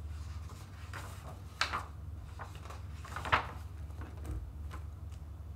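Pages of a hardcover picture book being turned and pressed flat by hand: paper rustling, with two sharper swishes about a second and a half in and again about three seconds in, over a low steady hum.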